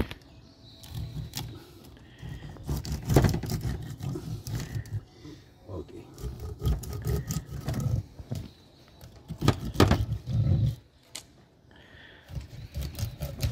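Knife cutting through a large fish's head behind the gills on a stainless steel counter: irregular scraping and crunching, with a few sharp knocks, the loudest about three and ten seconds in, and low rumbling in between.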